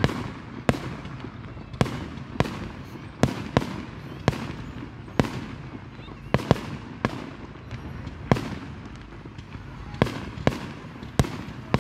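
Aerial fireworks bursting at a distance: a string of sharp bangs at irregular intervals, about one a second, each with a short echoing tail.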